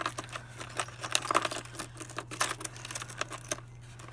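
Small metal bits and attachments clicking and rattling against a plastic rotary-tool case as a hand rummages through it, in quick, irregular clicks.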